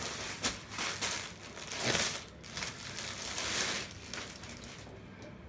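Plastic packaging of folded dress sets crinkling and rustling as it is handled, in a run of bursts that is loudest about two seconds in and dies down after about four seconds.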